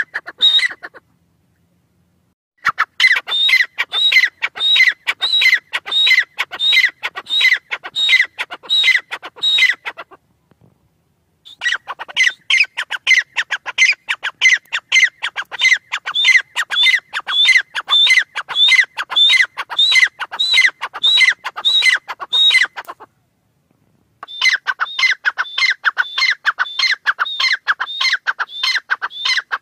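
Grey francolin calling: long bouts of rapid, shrill repeated notes, about three a second, broken by short pauses near the start, about ten seconds in and about twenty-three seconds in.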